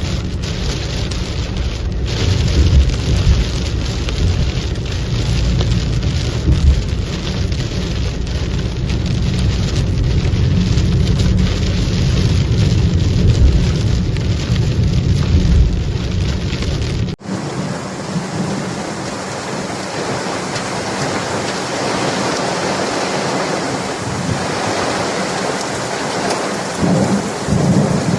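Heavy rainstorm: a steady rush of rain with a deep, uneven rumble underneath. About seventeen seconds in it cuts abruptly to a brighter, hissing downpour without the rumble.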